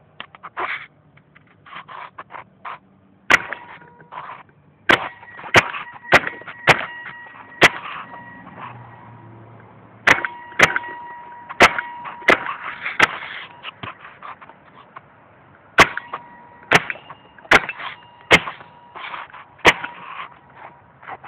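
VL Triton II paintball gun firing over a dozen sharp shots at uneven intervals, some in quick runs and others spaced a second or more apart, with softer cracks between them. A steady high whine sounds under several of the runs.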